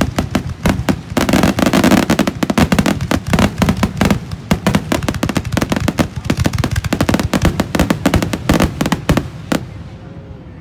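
Fireworks crackling in a dense, rapid run of sharp pops and bangs, heaviest about a second in, thinning out and stopping near the end.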